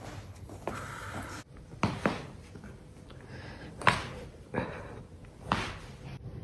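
Spinal joints cracking under the feet during back walking: a series of sharp pops, two close together about two seconds in and the loudest about four seconds in.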